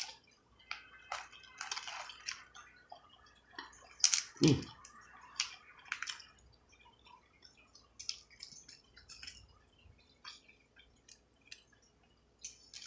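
Snow crab leg shells cracked and pulled apart by hand, without crackers: a scatter of small cracks, snaps and clicks, thickest about four to six seconds in.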